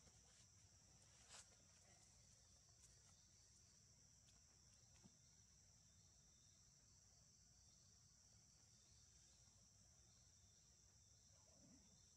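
Faint, steady, high-pitched insect drone, with a few soft clicks now and then.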